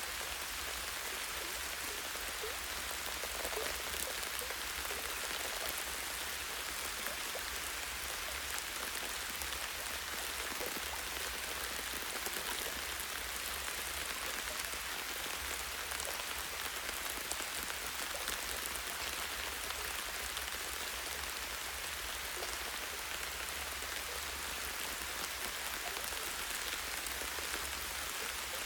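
Light, steady rain: a dense patter of raindrops hitting leaves and a tree branch, an even hiss with countless tiny drips.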